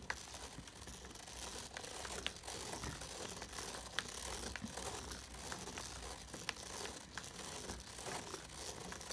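Pen scratching on paper as a Hasbro Spirograph's plastic gear is turned round inside its ring, with scattered small plastic clicks.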